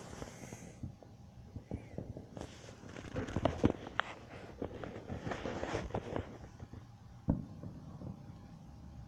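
Distant fireworks: irregular crackling pops in clusters, then a single sharper bang about seven seconds in.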